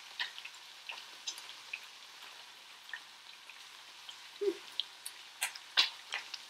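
Coconut shrimp frying in oil in a pan, a quiet crackle with scattered small pops and a couple of sharper clicks about five and a half seconds in.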